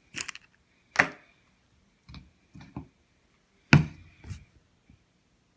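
Sharp knocks and clicks of measuring cups being handled and set down on a wooden cutting board. There is a sharp knock about a second in, a few softer thumps after it, and the loudest knock near four seconds, followed by a lighter click.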